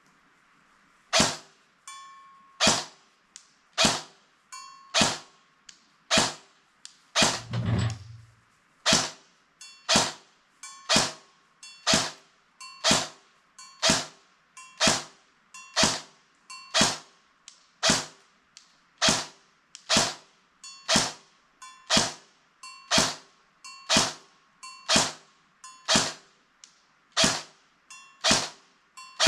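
Barra 400E electric BB gun firing single shots at a steady pace of a little over one a second, each a sharp crack. Many shots are followed by a faint short ring from the steel target being hit 50 yards away. One dull thud comes about a quarter of the way through.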